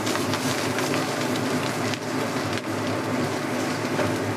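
Eggs and garlic frying in hot oil in a pan: a steady sizzle with frequent small crackles and pops of spattering oil.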